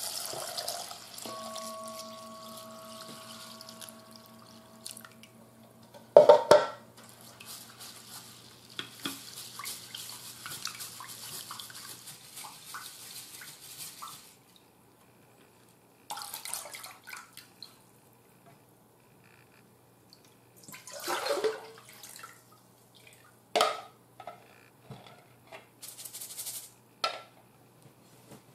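Rice being washed in a stainless mesh strainer sitting in a bowl: water poured over the grains, then sloshing and rustling as hands rub the rice in the water, with several sharp knocks of the strainer against the bowl, the loudest about six seconds in.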